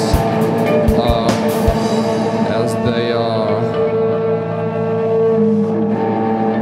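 Band music: drum hits for the first couple of seconds over held notes, a sliding pitch a little later, then sustained droning notes to the end.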